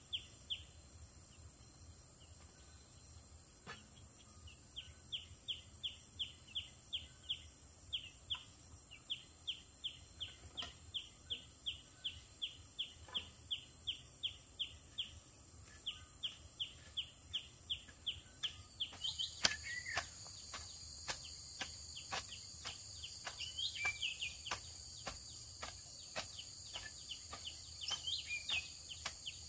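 Steady high insect drone, with a bird repeating a short falling call about three times a second. About two-thirds of the way in, sharp repeated strikes begin, a hoe chopping into soil, while other birds call.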